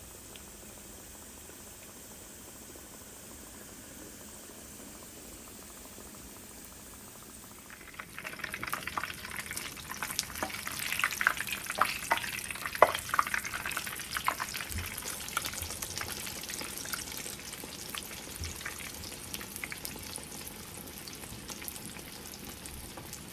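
Dough frying in hot melted Crisco: a steady soft sizzle, then about eight seconds in a sudden burst of louder crackling and popping that gradually eases back to a busy sizzle.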